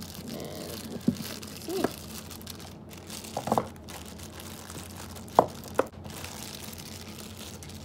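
Clear plastic packaging bag crinkling as it is handled, with a few sharper crackles scattered through, the loudest about five and a half seconds in.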